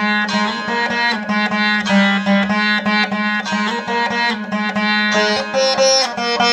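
Saraswati veena played solo: a run of plucked melody notes, several a second, over a steady low drone.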